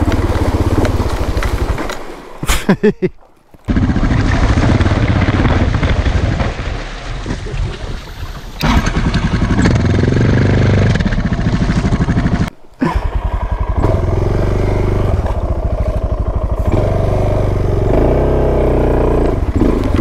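Suzuki DR650's single-cylinder engine running through a creek crossing, with two brief breaks in the sound, about three seconds in and again past twelve seconds.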